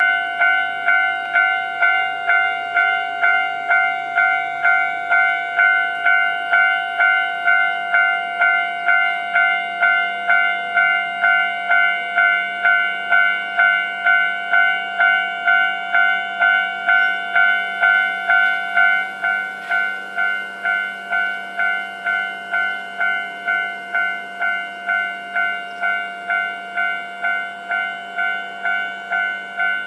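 Japanese railway level-crossing warning bell ringing in a steady, even rhythm of about two strikes a second. It drops noticeably in volume about two thirds of the way through and keeps ringing.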